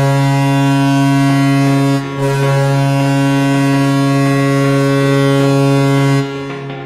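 Toronto Maple Leafs' arena goal horn, a low-pitched air horn sounding two long blasts: one of about two seconds, then after a brief break a longer one of about four seconds that fades out near the end.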